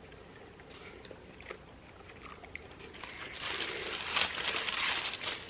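Close-miked eating sounds: soft chewing and small mouth clicks, then from about three seconds in a louder, dense rustling noise of food or its packaging being handled.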